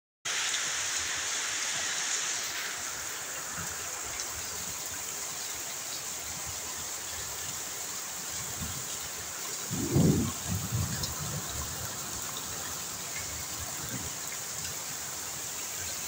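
Campfire of burning logs, a steady hiss with faint scattered crackles, and a low thump about ten seconds in.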